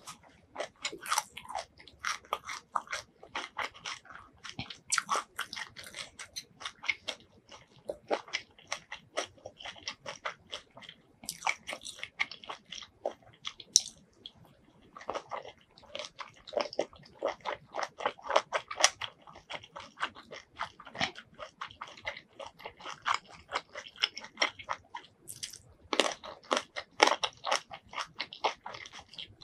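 Close-miked chewing and biting of spicy Thai squid salad: many rapid, crunchy, wet chews in irregular runs, with a few short pauses.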